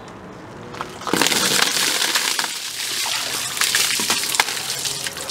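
A bucket of ice water tipped over a person's head, starting about a second in: a sudden loud splash and gush of water hitting his body and the paving stones, with many sharp knocks mixed in.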